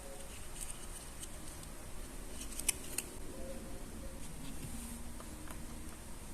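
Light clicks and rustles of plastic toy pieces being handled, with two sharper clicks near the middle.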